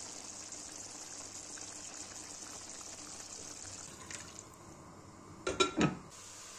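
Steady watery hiss of liquid being poured into a pan of chopped onion, ending about four seconds in; then a glass pan lid clinks against the pan three times in quick succession, the loudest sound.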